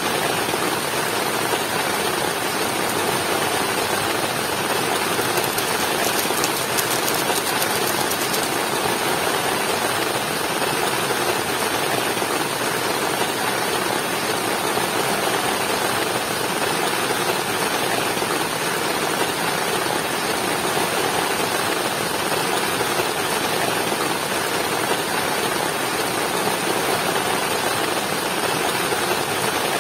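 Heavy rain falling steadily, mixed with the constant rush of a waterfall.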